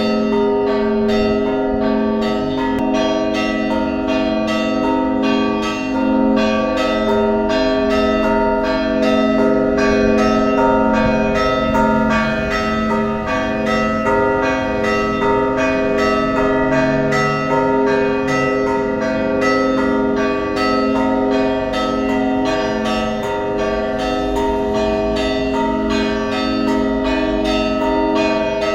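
Orthodox church bells ringing in a continuous, rapid peal. Small bells are struck several times a second over the sustained ring of the larger bells.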